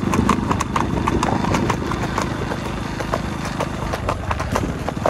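A horse's hooves clip-clopping in a quick, even run of beats as the mare is ridden at a brisk gait, over a low steady drone.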